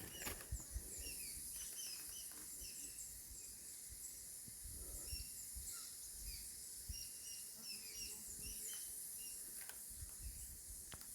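Bush ambience: birds giving many short, repeated chirps over a steady high-pitched insect drone, with a few faint low thumps.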